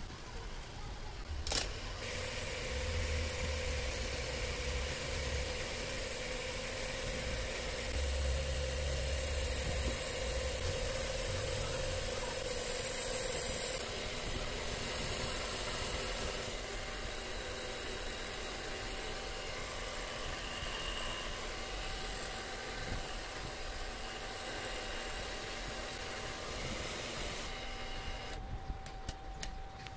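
Cylinder boring machine switched on about a second and a half in, its motor and spinning cutter boring out a TATA Ace engine block cylinder to take a liner. It runs with a steady hum and a hiss, and the high hiss drops away near the end.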